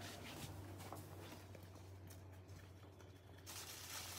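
Quiet room tone with a steady low hum, and a few soft clicks from plastic bassinet parts being handled in the first second.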